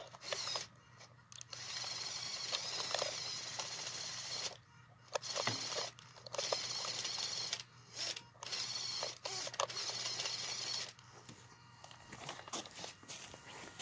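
Small electric motor and plastic gearbox of a WPL C24 RC truck whirring in throttle bursts of a few seconds each, with short pauses between, as it crawls through snow; quieter near the end.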